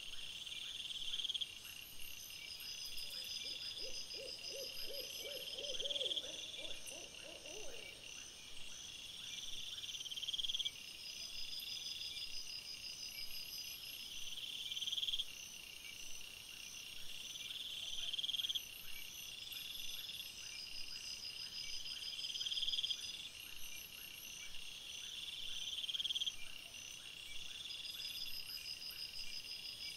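Insect chorus of cricket-like trills, repeating in phrases that swell and cut off every few seconds. An owl's wavering hoot comes in between about 3 and 8 seconds, and again at the very end.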